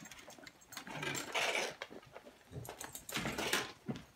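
Cockalier puppies' claws clicking and scrabbling on a hard wooden floor, in two bursts: about a second in, and again around three seconds.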